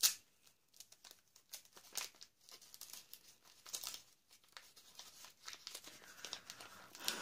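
Gift-wrapping paper crinkling and tearing in many short rips as a small, heavily taped present is picked open by hand, denser near the end.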